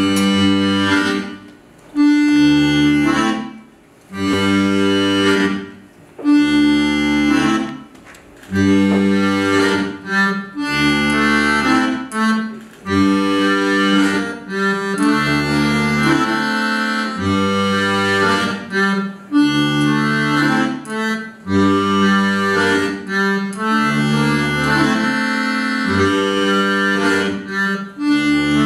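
Instrumental music: sustained chords over alternating bass notes, in short phrases broken by pauses for the first eight seconds or so, then running on without breaks.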